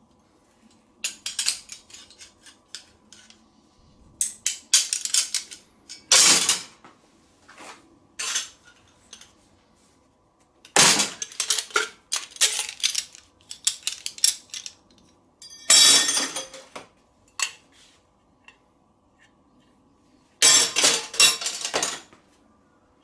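Metal pieces clattering and clinking against each other in about six separate bursts of rattling, over a faint steady hum.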